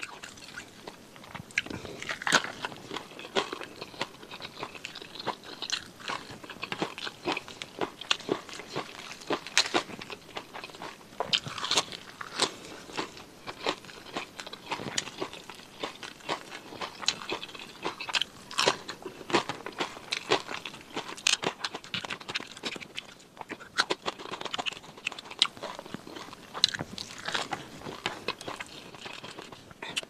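Close-miked eating sounds of fried quail, pressure-cooked and then fried: repeated crunching bites and chewing, with many sharp crunches scattered throughout.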